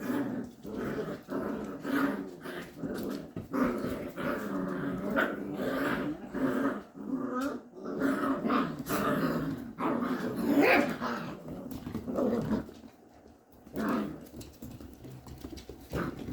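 Goldendoodle puppies growling in play, a near-continuous run of short, rough growls with yips mixed in. It dies down about three-quarters of the way through, leaving only a few brief sounds.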